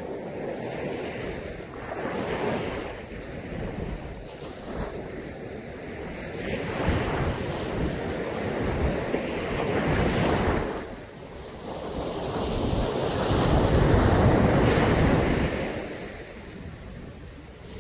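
Caribbean Sea waves breaking and washing up on a beach, the surf swelling and ebbing in long surges, loudest about ten seconds in and again a few seconds later. Wind buffets the microphone.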